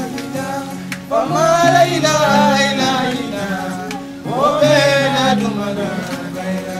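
Gambian music: a voice sings two long phrases that slide downward, the first about a second in and the second about four seconds in, over a repeating plucked-string accompaniment of low notes.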